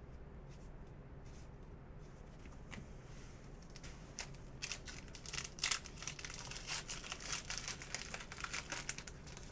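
Crinkling and crackling of plastic trading-card packaging being handled. It starts about four seconds in as a rapid run of sharp crackles, loudest a little before the end.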